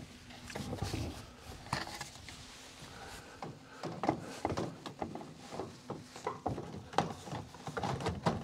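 Plastic rain gutter sections being handled and pushed up into metal hangers under an eave: irregular knocks and clicks, more frequent in the second half.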